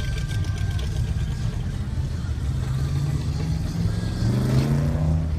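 Car engine running with a low rumble, then accelerating with a steadily rising pitch for the last couple of seconds.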